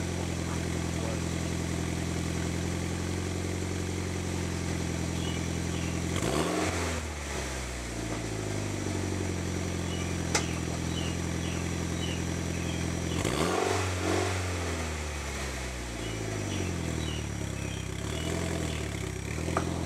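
Mitsubishi Lancer Evolution X's turbocharged 2.0-litre four-cylinder idling steadily through a CP-e catback exhaust. It is blipped twice, about seven seconds apart, and each time the revs rise sharply and fall back to idle. A single sharp click comes between the two blips.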